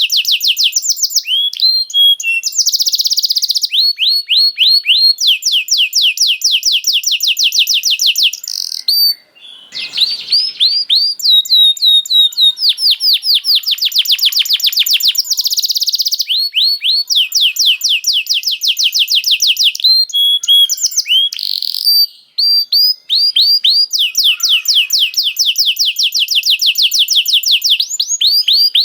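Domestic canary singing a long, high-pitched song of fast rolling trills: runs of rapidly repeated notes, some rising and some falling, broken by two short pauses.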